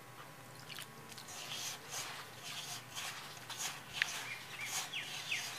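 A hand mixing semolina and flour with water in a steel bowl: soft, irregular gritty rustling and scraping strokes as the dry mix is worked toward a dough. A few faint high chirps come near the end.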